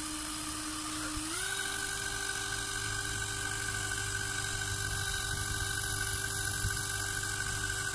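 A small motor whining steadily, stepping up slightly in pitch a little over a second in and then holding.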